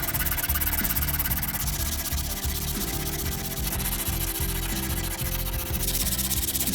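Continuous abrasive sanding, steady for the whole stretch.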